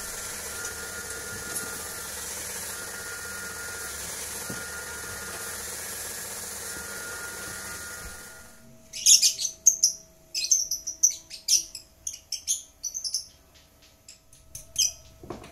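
A steady hissing background with faint tones coming and going, then from about eight seconds in small birds chirping in quick clusters of short, high calls.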